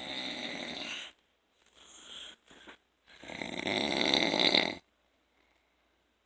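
A man snoring in his sleep: a snore of about a second at the start, a faint short one around two seconds in, then a longer, louder snore that builds for nearly two seconds before stopping.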